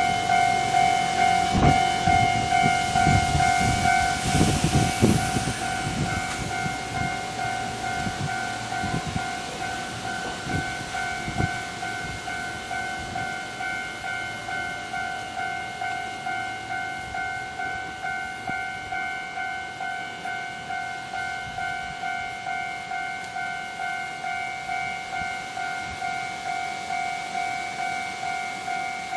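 Japanese level-crossing warning bell ringing in a steady, even pulse throughout, while an electric commuter train runs over the crossing, its wheels clacking over the rail joints for the first several seconds and fading away by about twelve seconds in. A high whine falls in pitch as the train goes by, about four seconds in.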